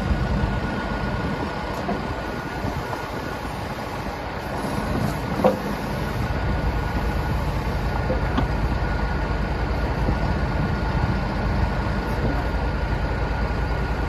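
2014 John Deere 310K EP backhoe loader's four-cylinder diesel engine running steadily while the backhoe boom and bucket are worked. A steady high whine is heard, along with a few light knocks, the loudest about five and a half seconds in.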